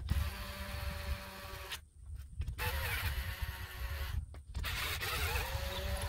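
Cordless drill with a socket bit unscrewing a lawnmower engine's cylinder head bolts, running in three spells of one to two seconds each. Its motor whine dips briefly under load and then rises again.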